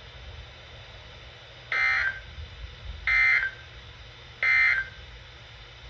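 Emergency Alert System end-of-message signal: three short, harsh bursts of digital data tones, each about half a second long and a little over a second apart, marking the end of the broadcast alert.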